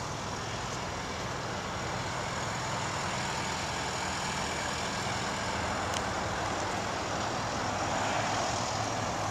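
Steady motor-vehicle noise: a low engine hum under a wide, even hiss, swelling slightly near the end, with a faint click about six seconds in.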